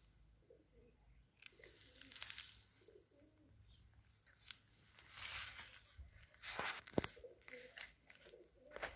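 A dove cooing faintly in low, wavering notes, on and off. Louder rustling swells come through in between, with a sharp click about seven seconds in.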